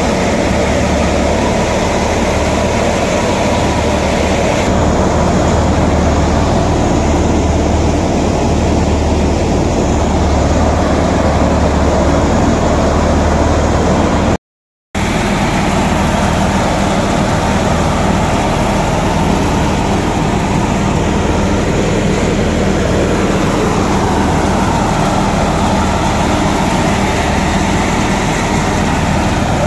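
Tractor-driven Diamond thresher running steadily under a New Holland Ghazi tractor's diesel engine, a dense mechanical drone while taramira plants are fed into it for threshing. The sound cuts out completely for a moment about halfway through.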